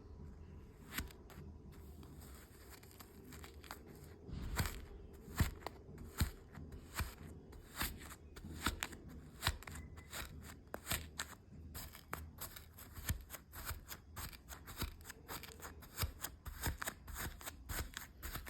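Kinetic sand being cut and crumbled: a dense, irregular run of small crisp crunches and clicks, some louder than others.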